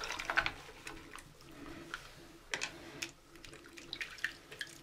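Tap water running into a sink partly filled with soapy water, while hands rub a small plastic model car tire under the stream, giving scattered small splashes.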